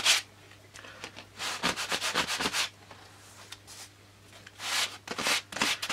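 A hand sanding block rubbed back and forth over thin balsa sheets, in short runs of quick scraping strokes with pauses between. The sanding is done over a freshly CA-glued seam, so the dust works into the joint to form a fillet.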